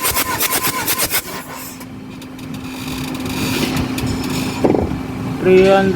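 Mitsubishi 4D56 diesel engine turning over on its starter during a compression test, an even rapid chugging of about four beats a second that stops a little over a second in. Near the end comes a short, loud, steady pitched tone.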